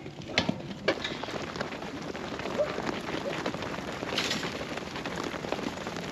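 A dense, steady patter of many small impacts, with a couple of sharp knocks in the first second.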